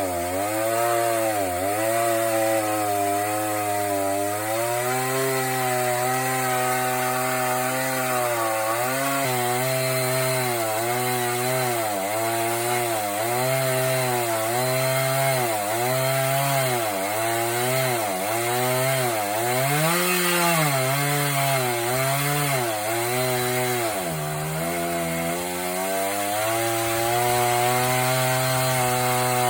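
Chainsaw in an Alaskan chainsaw mill, running at high revs as it rips through a hardwood log. Through much of the cut the engine pitch dips and recovers about once a second as the chain loads in the wood. A deeper dip comes near the end, after which it runs steadier.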